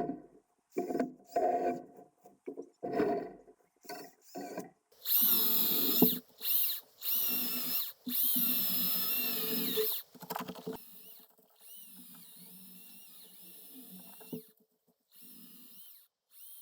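Makita DUC405 cordless electric chainsaw, run on two 18 V batteries, cutting wood in bursts of a few seconds each, its motor whine wavering in pitch. It carries on more faintly for a few seconds near the end.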